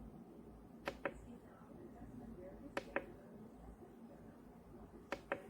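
Three quick double clicks about two seconds apart, each pair a press and release of a radio's push button.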